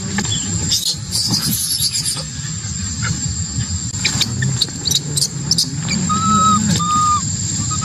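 Baby macaque giving two short, level-pitched cries about six seconds in, over a steady low rumble and scattered clicks and rustles.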